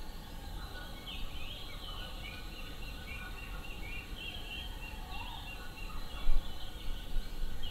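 Several birds calling at once, a busy run of short high chirps and trills, over a steady low rumble. A louder low bump comes about six seconds in.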